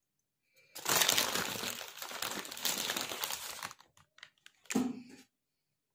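Crinkling and rustling as flour is spooned into a steel tray, then a few light clicks and a short knock near the end.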